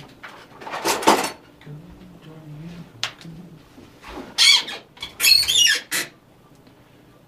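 Several sharp squeaks: one about a second in, then two louder runs about four and five and a half seconds in. A low hummed tone comes and goes between them.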